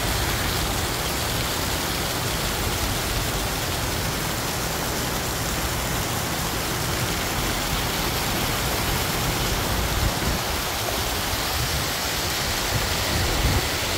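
Fountain jets arcing into a shallow river channel, splashing steadily over the river's rushing water.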